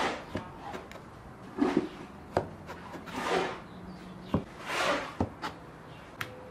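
Metal crinkle-cutter blade pressed down through a rolled log of pastry dough, knocking several times on a wooden board, with scraping and rustling between the cuts.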